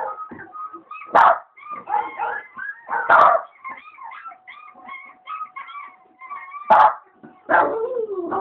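Lhasa Apso dog giving a string of high yips and whines, broken by four loud barks.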